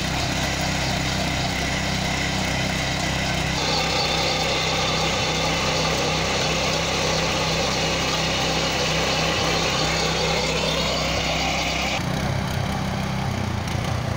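Walk-behind power tiller's 7 HP engine running under load while its standard rotary blades churn through grassy soil. The sound grows louder and harsher a few seconds in and eases again near the end.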